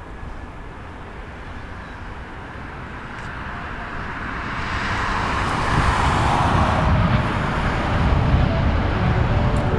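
Jet engines of a four-engined Airbus A340 airliner on its landing roll: a rushing roar that swells from faint to loud about halfway through and stays loud to the end.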